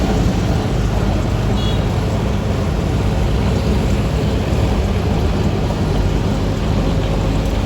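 Heavy diesel road-paving machinery running steadily with a low engine rumble. A brief faint high tone comes about one and a half seconds in.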